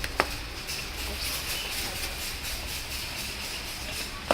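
Laminating machine running with a steady hiss, with a sharp click just after the start and another near the end.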